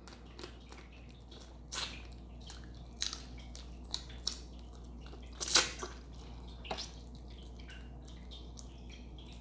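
Close-up wet chewing and lip-smacking of a person eating a buttery seafood boil: a run of small sticky clicks with a few louder smacks, the loudest about five and a half seconds in.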